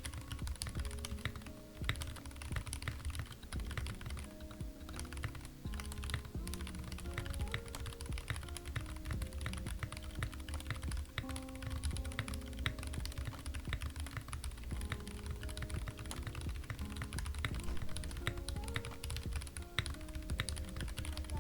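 Steady, fast typing on a Kemove61 Snowfox mechanical keyboard fitted with Gateron Brown tactile switches and white stabilizers: a continuous run of key presses. Soft background music plays underneath.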